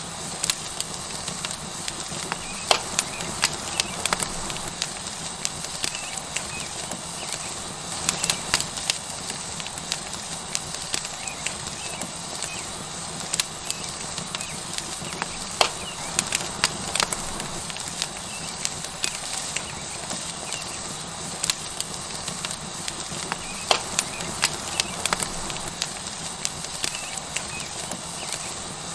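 Tomahawk steak sizzling on a hot rock over a wood fire: a steady hiss with frequent sharp crackles and pops.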